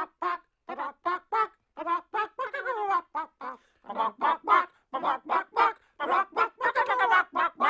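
Chicken clucking: a quick run of short pitched clucks, about three to four a second, getting louder after about four seconds.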